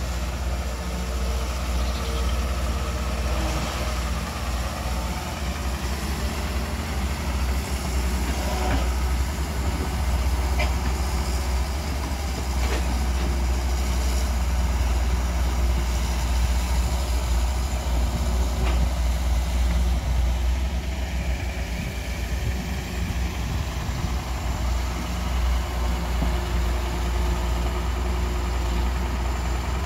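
Excavator's diesel engine running steadily with a low hum, with a few faint clanks.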